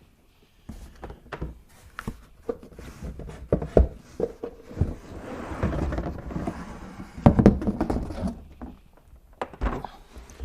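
Rustling and clunking from a shop vac being unpacked: plastic parts and packaging handled out of a cardboard box, with scattered knocks and a louder bout of rustling near the middle.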